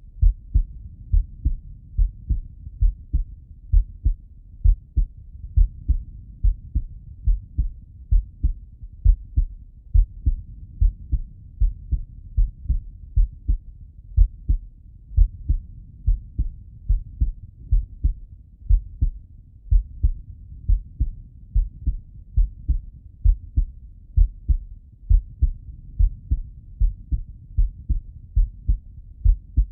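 A man's heart heard through the bell of a Littmann stethoscope: a steady lub-dub rhythm of paired low thumps, about one heartbeat a second.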